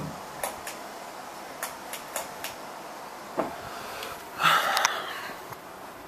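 Handling noise from a camera being moved: a scatter of light clicks and knocks, then a louder rustle about four and a half seconds in, over a faint steady background.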